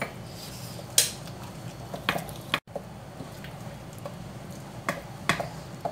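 Boiled split red lentils being mashed with a wooden dal masher in a pressure cooker: soft squishing, with a few sharp knocks of the wood against the pot over a steady low hum.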